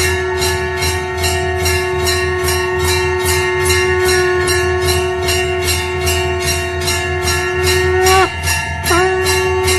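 Temple bells struck rapidly and evenly, about three to four strikes a second, over a long held tone that bends down and breaks off briefly about eight seconds in before resuming.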